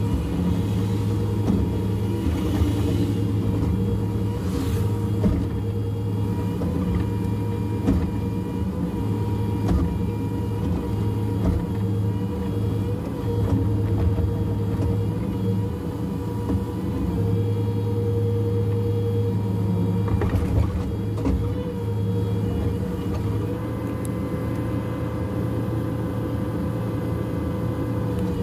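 Cat 305.5E2 mini excavator's diesel engine running steadily under hydraulic load while digging, with a few short knocks. The engine note steps up slightly about 23 seconds in.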